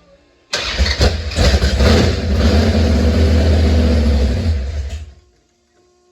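Old car engine turning over and firing on its first start, with uneven pulses at first, then running steadily and loudly for about four seconds before it stops just after the five-second mark.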